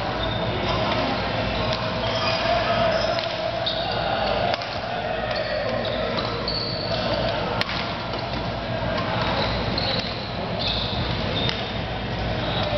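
Doubles badminton in a large, echoing sports hall: sharp clicks of rackets hitting the shuttlecock, short high squeaks of court shoes on the floor, and a steady din of play and voices from the hall.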